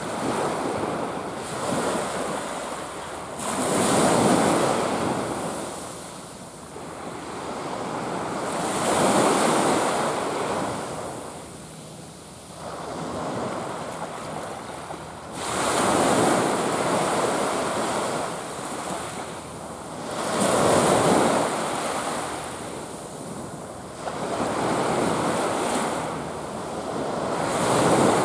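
Surf breaking and washing up a sandy beach, the noise of each wave swelling and fading every five to seven seconds.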